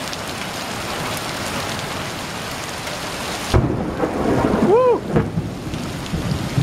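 Heavy rain pouring steadily onto a flooded alley. About three and a half seconds in, a loud clap of thunder breaks in and rumbles on low to the end.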